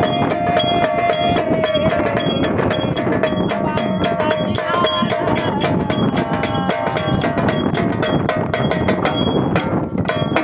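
Marathi devotional folk song (parasrami) in a woman's voice, over a steady beat of jingling metal percussion; a long held note in the first two seconds.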